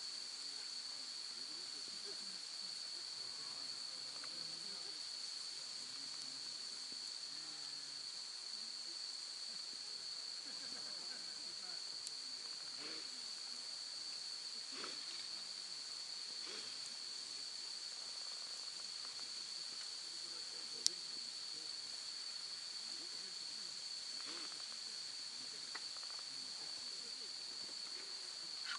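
Autumn insects, crickets, chirring in a steady continuous high-pitched chorus. A few faint ticks sound through it, and there is one sharp click about two-thirds of the way through.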